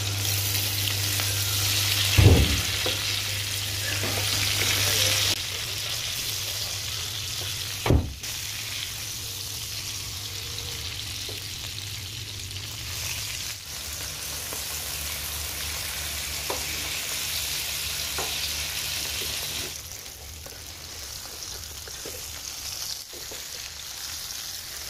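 Masala-coated whole fish deep-frying in hot oil in a non-stick pan: the oil sizzles steadily, louder for the first five seconds and quieter later on. Two sharp knocks, at about two and eight seconds in, come from the wooden spatula against the pan as the fish are turned.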